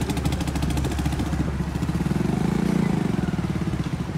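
Motorcycle engine running while being ridden, its pitch and loudness swelling up and falling back around the middle.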